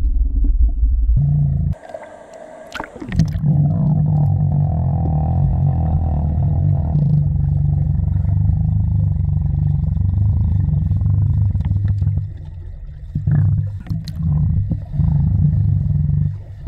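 Muffled low underwater rumble and water noise picked up by a submerged camera as a swimmer dives past. About two seconds in it briefly drops out with a few sharp splashy clicks.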